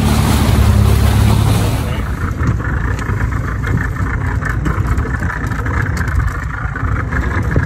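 Yamaha 90 outboard motor running steadily, loud and low for the first two seconds and then lighter, with a few light clicks.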